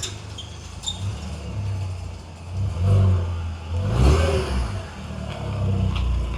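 BAM-swapped Mk4 Golf GTI's 1.8-litre turbocharged four-cylinder running through its decat exhaust, with two short revs about three and four seconds in.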